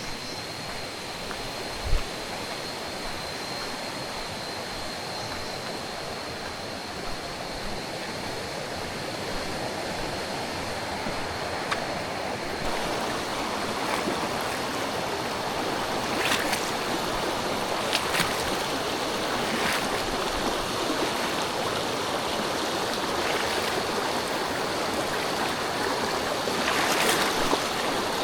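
River water rushing over a shallow stream bed, a steady noise that grows louder about halfway through. A thin steady high whine sounds through the first half, there is a soft thump about two seconds in, and a few sharp knocks or splashes come in the second half.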